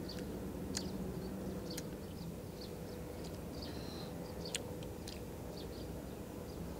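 A steady low hum with a few scattered short, sharp clicks and one brief high chirp a little past the middle.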